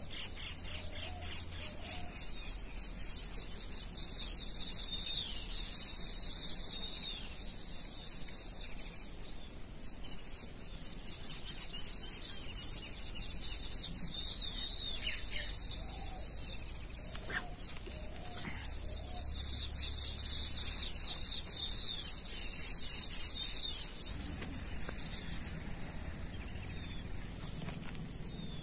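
Small birds chirping and twittering, a dense, continuous chorus of quick high notes. Near the end a steady high tone joins in.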